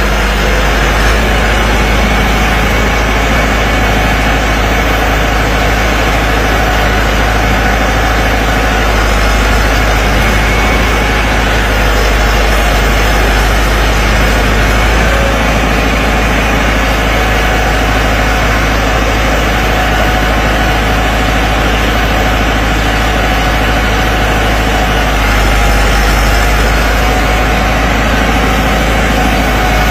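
Massey Ferguson 385 tractor's four-cylinder diesel engine running steadily under load, pulling a rotavator through the soil.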